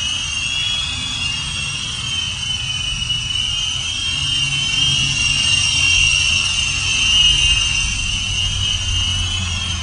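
Draganflyer X-Pro quad-rotor RC helicopter in flight: its four electric motors and rotors give a steady high-pitched whine that wavers slightly in pitch, over a low rumble.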